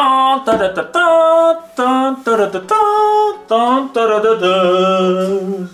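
A man singing a tune in steady, held notes that step from pitch to pitch, ending on one note held for over a second.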